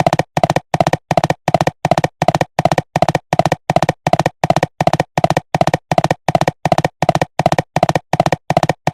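Cartoon galloping sound effect: hollow clip-clop hoofbeats repeating in a fast, even rhythm, about three beats a second, unchanging like a loop.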